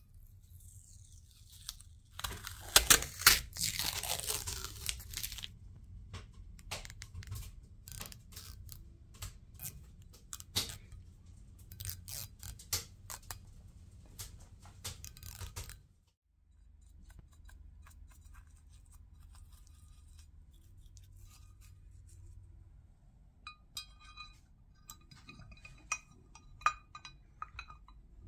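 Masking tape being peeled off a painted housing: a long rasping rip about two seconds in, then a run of short crackling pulls. Near the end, small brass parts clink sharply as they are fitted back into the housing.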